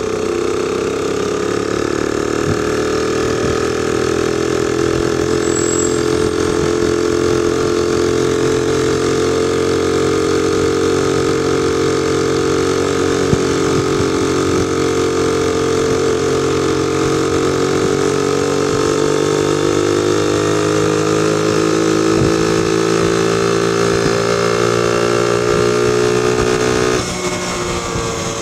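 Honda PC50 moped's small four-stroke single-cylinder engine running flat out and labouring up a hill with no run-up, a steady drone whose pitch rises slowly at first and then holds. About a second before the end it drops and quietens as the engine eases off.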